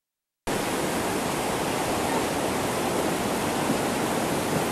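Silence for about half a second, then the steady rush of whitewater rapids.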